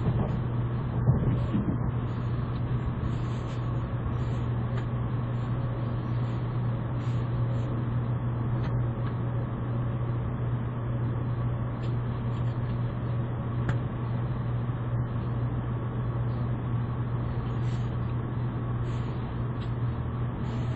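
Cabin running noise of an N700 series Shinkansen bullet train gaining speed: a steady low hum under an even rush of rolling noise.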